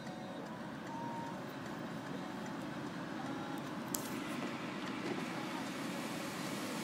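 Hail and heavy rain drumming on a car's roof and windows, heard from inside the cabin as a steady, dense clatter, with one sharp knock of a stone hitting the car about four seconds in.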